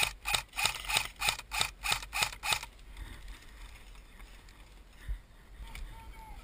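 Airsoft rifle firing single shots in quick succession, about three a second, with a sharp mechanical click on each shot. About nine shots; the firing stops a little under three seconds in.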